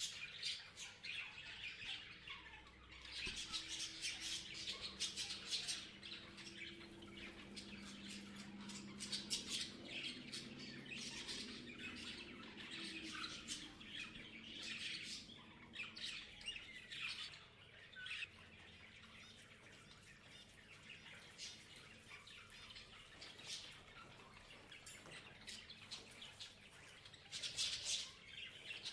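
Parrots chirping and squawking, many short overlapping calls with no pause, busier in the first half and again near the end.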